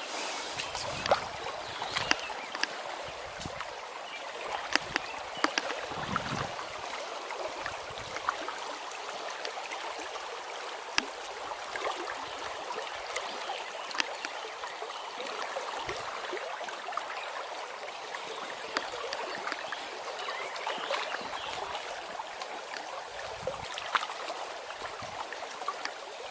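Shallow river riffle rushing and gurgling over stones in a steady hiss, with scattered light clicks.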